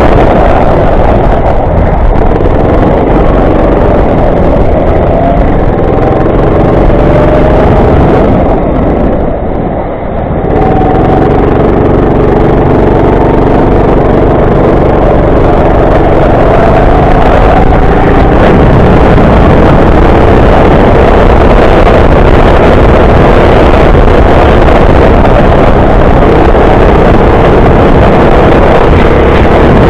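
Go-kart engine running hard, its pitch rising and falling through the laps. The engine eases off briefly about nine seconds in, then picks up again.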